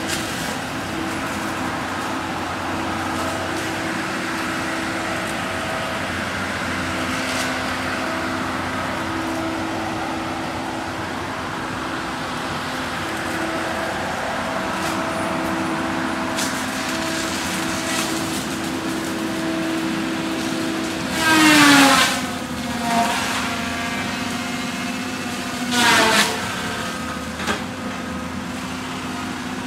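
Cat 573C feller buncher running steadily, its engine and spinning saw head making a constant whine. About two-thirds of the way through, the saw hits wood twice: each cut is a loud burst whose whine drops in pitch as the blade is loaded.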